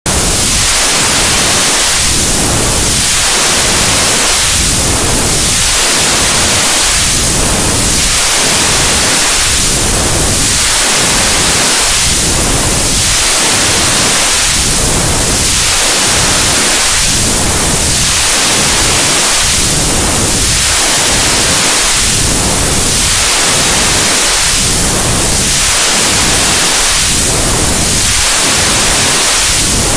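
Loud, steady white noise with a hollow whoosh that sweeps through it and repeats about every two and a half seconds.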